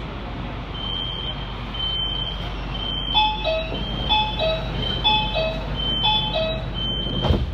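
Metro door-closing warning signal: a high beep repeating about once a second, joined about three seconds in by a lower falling two-note tone at the same rate, over the train's steady low hum. A sharp knock near the end.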